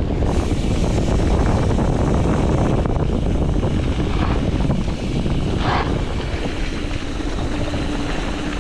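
Wind buffeting the microphone and tyre rumble from a mountain bike riding fast down a trail, a steady loud rush, with a short higher-pitched sound about six seconds in.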